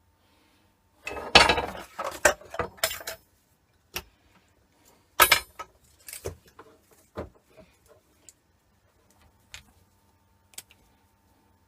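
Small metal parts of a dismantled MIG welding torch clinking and rattling as they are handled: a burst of rattling about a second in, then a few separate clicks and knocks that thin out to faint ticks.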